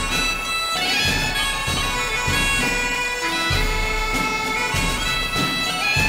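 Outro music: a bagpipe tune over a held drone, with drum hits underneath.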